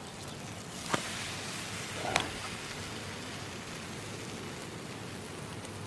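Steady hiss of an omelette frying in a pan over a turned-down stove, with two sharp knocks about one and two seconds in as the pan and spatula are handled for the flip.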